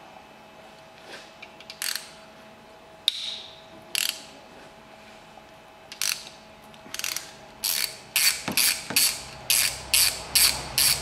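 Socket ratchet clicking as it winds out a big-end (connecting-rod cap) bolt: a few separate clicks at first, then a quick, even run of about three ratchet strokes a second in the second half.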